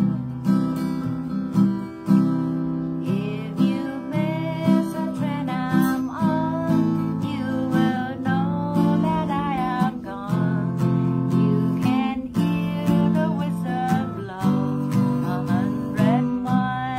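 Acoustic guitar strummed in a steady rhythm, with a woman singing a melody over it from about three seconds in.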